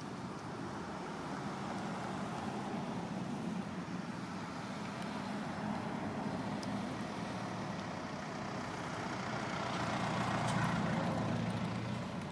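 Steady low engine rumble of a motor vehicle, swelling to its loudest about ten seconds in and then easing off.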